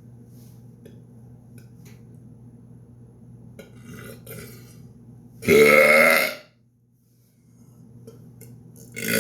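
A man's loud, deep belch from a throat full of milk, about a second long, just past halfway, preceded by faint breathing; a second burp starts at the very end, one he has to push out.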